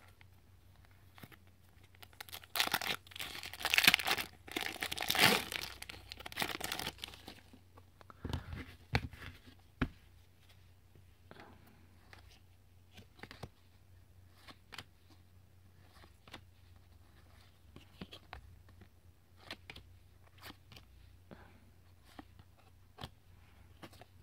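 Trading-card pack wrapper torn open and crinkled, loudest from about two to seven seconds in. Then faint, scattered clicks as the cards are flicked through one by one.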